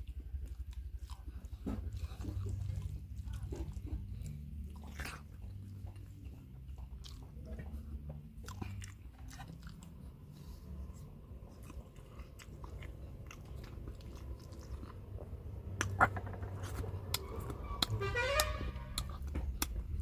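Close-miked chewing and biting of meat, with many short wet mouth clicks and crunches. There is a sharp knock about 16 seconds in, and a brief pitched squeak that wavers up and down a couple of seconds before the end.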